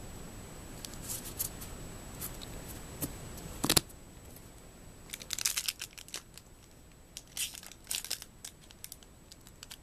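Foil wrapper of a Magic: The Gathering booster pack crinkling and tearing as it is opened by hand, in irregular short crackly bursts, with one louder sharp crackle a little before halfway.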